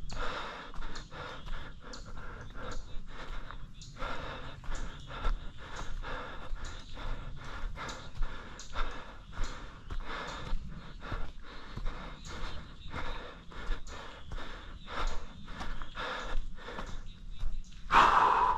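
A runner's heavy, rhythmic panting under hard exertion, breath after breath in a steady train, with a louder breath near the end.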